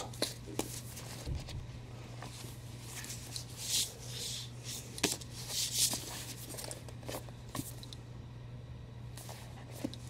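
Stacks of paper comic books being handled and slid against each other and the cardboard box: scattered short rustles and sliding sounds with a few soft taps, over a steady low hum.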